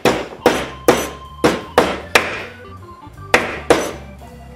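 Hammer striking a small piece of thin scrap sheet metal clamped in a bench vise to bend it to a 90-degree angle: sharp ringing metal blows, about two or three a second, then a pause of about a second and two more.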